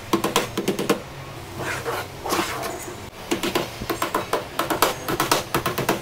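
Hammer tapping small nails through aluminium sheet into a wooden frame: quick light blows, several a second, each with a short ring. The taps come in two runs, with a pause of about two seconds in the middle.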